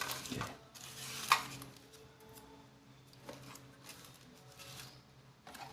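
Small plastic doorbell-kit parts and packaging being handled: scattered light clicks and rustles, with one sharp click about a second and a half in. A faint steady hum runs underneath.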